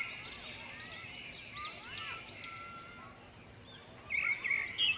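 Several small birds chirping and calling at once in quick short arched notes, with a louder flurry of chirps about four seconds in.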